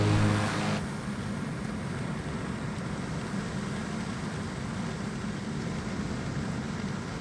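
Music cuts off about a second in, leaving the steady road and engine noise of a moving car, heard from inside the cabin.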